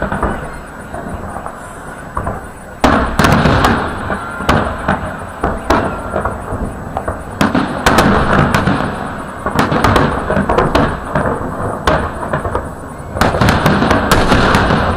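Fireworks salute: shells bursting overhead in rapid volleys of bangs over a dense crackle and rumble, with fresh loud volleys about three seconds in, about halfway through, and near the end.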